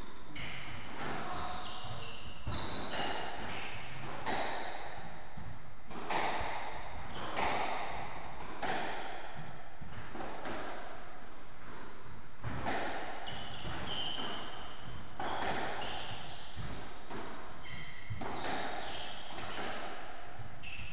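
Squash rally: the hollow smack of the ball off rackets and the court walls every second or so, with short high squeaks of shoes on the wooden floor between the shots.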